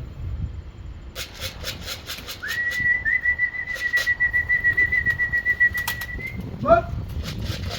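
A person whistling one long, steady note for about four seconds, ending in a quick rising whistle, over a run of sharp flapping claps from a pigeon's wings as it comes in.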